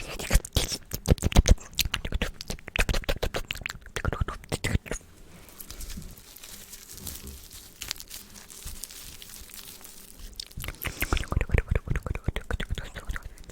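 Wet ASMR mouth sounds close to the microphone: fast runs of clicking and smacking, softer for several seconds in the middle before speeding up again near the end.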